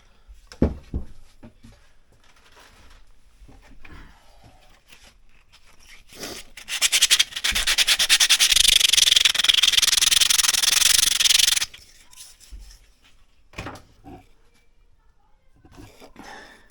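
Rapid, steady scraping or sanding for about five seconds, starting about six and a half seconds in. A few sharp knocks come about half a second in.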